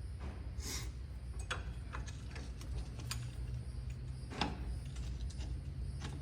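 Scattered light clicks and taps of hand tools and metal parts being handled, one sharper knock about four and a half seconds in, over a steady low hum.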